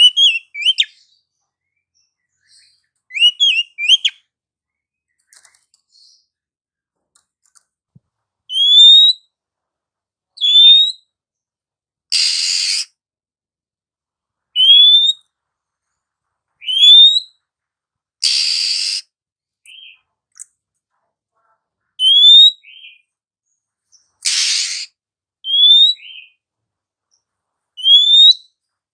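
Female oriental magpie-robin (kacer) calling: short rising whistled notes, mostly about two seconds apart, broken roughly every six seconds by a harsh rasping call about a second long. It opens with a few quicker twittering notes.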